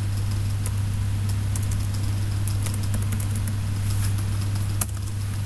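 Steady low electrical hum and hiss on the recording, with scattered soft keyboard clicks as code is typed.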